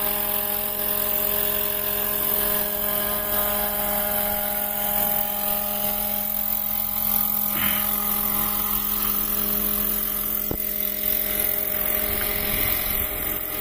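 Battery-electric 800-size scale RC helicopter in flight: its main rotor and electric motor give a steady hum and whine that holds an even pitch throughout.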